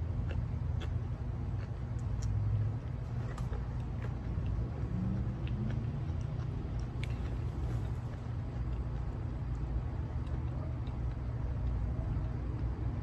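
A steady low outdoor rumble, with faint scattered clicks and smacks of a person eating with her hands: chewing and fingers picking at food on a plate.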